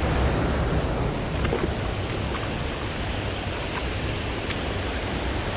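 Steady rushing of a small creek's running water, with a few faint clicks over it.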